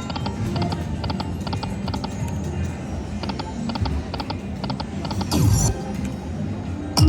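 Slot machine game sounds: a steady run of short clicking ticks, about two to three a second, over continuous low casino noise. A brief louder burst comes about five and a half seconds in, and a sharp hit near the end.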